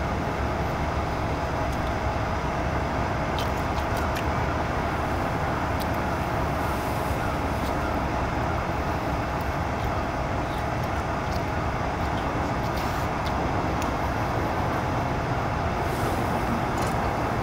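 Single-burner canister gas stove burning steadily with a constant rushing hiss, with scattered faint crackles from crinkle-cut fries frying in the pan on it.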